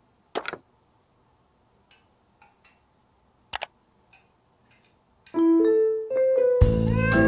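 A quiet stretch broken by two sharp clicks, then piano music: a few single held notes come in about five seconds in, joined a second later by fuller, louder music.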